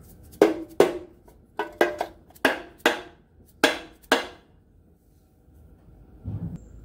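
A hammer or mallet tapping an aluminium bell housing about nine times in quick, uneven blows, each with a short metallic ring. The blows seat the bell housing, which holds a hydraulic throw-out bearing, onto the engine block before its dowel pins are in.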